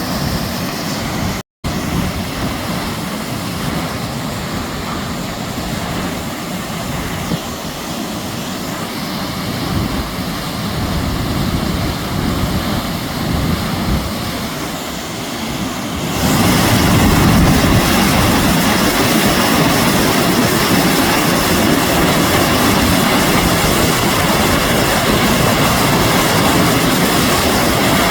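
Steady roar of heavy thunderstorm rain and wind, with a brief break near the start and a jump to a louder, heavier downpour a little past halfway.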